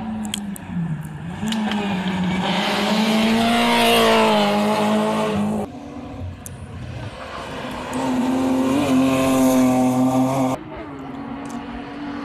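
Rally car engine accelerating hard while still out of sight, getting closer. The revs climb and then cut off sharply twice, about six seconds in and again near the end.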